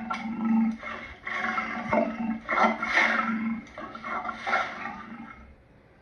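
Lion vocalizing: a run of rough, breathy grunts, about one every half second to a second, fading away near the end.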